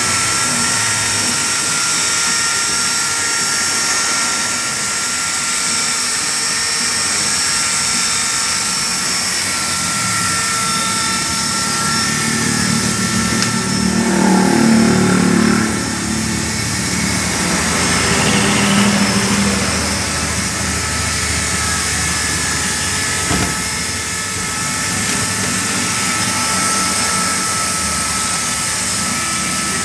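Electric hand drill running with a steady high whine while drilling into the sheet-steel cabinet of an egg incubator, with a louder, rougher stretch around the middle.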